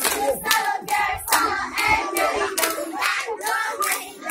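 A group of children singing a chant together while clapping their hands in a steady beat, about three claps a second.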